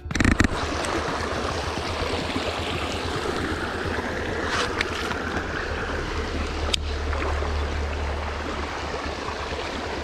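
Water of a shallow stream running steadily, with a short louder burst just after the start and a few sharp clicks around the middle.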